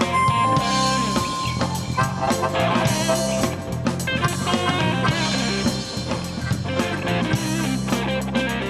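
Blues band playing: a harmonica holds one long note at the start, then electric guitar licks lead over bass guitar, drum kit and keyboard.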